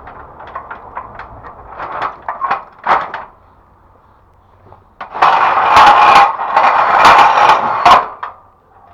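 A series of scattered knocks and clatters, then, about five seconds in, roughly three seconds of loud rattling and scraping with many sharp strikes, the noise of hard parts being handled and knocked together.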